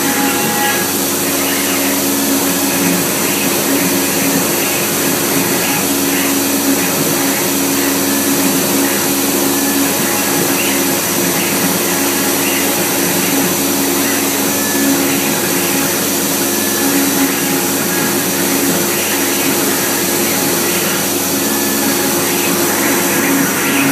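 OMNI CNC router engraving a wood board: the spindle runs with a steady whine over the even noise of the cutting and of the dust-extraction vacuum drawing through its hose.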